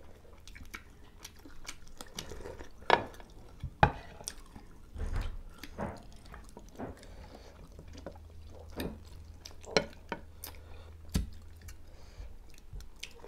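Close-up eating sounds: chewing on chicken pieces, and a metal spoon tapping and scraping in a ceramic bowl of chicken soup. These come as a run of scattered small clicks and taps, with two sharper knocks about three and four seconds in.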